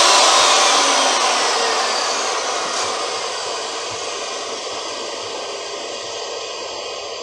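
An electric power tool motor whirring, then spinning down: the noise fades over the first few seconds with a faint falling pitch, then settles into a quieter steady hiss.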